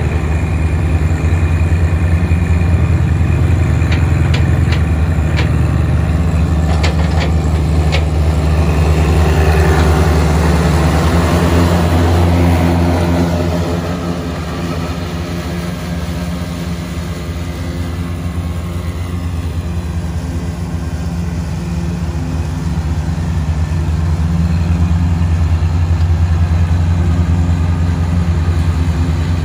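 John Deere 2025R compact tractor's three-cylinder diesel engine running steadily while it pulls a Frontier GM1072 rear finish mower cutting tall grass. A handful of sharp clicks come a few seconds in, and the sound grows a little quieter from about halfway through.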